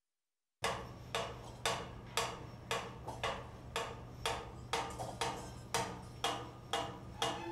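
Steady hammer blows on steel, about two a second and very evenly spaced, over a low steady hum. They start about half a second in.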